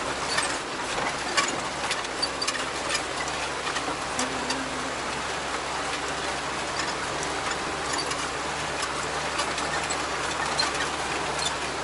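Car engine and road noise heard from inside the moving vehicle's cabin: a steady hum with scattered small clicks and rattles.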